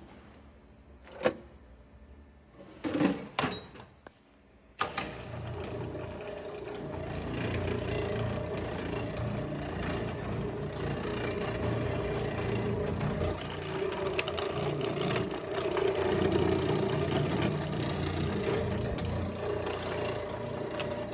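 A few clicks, then about five seconds in a Sheldon 10" x 20 bench lathe starts suddenly and runs steadily, its motor and gearing making a constant hum with a few steady tones.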